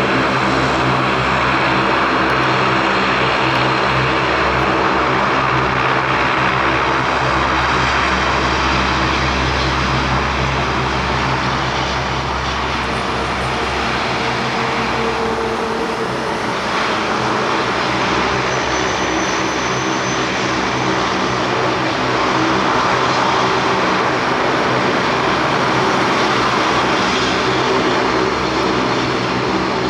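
Lockheed C-130 Hercules four-engine turboprops running loud and steady: a droning propeller hum over a wide rush of engine noise, easing slightly midway and swelling again later.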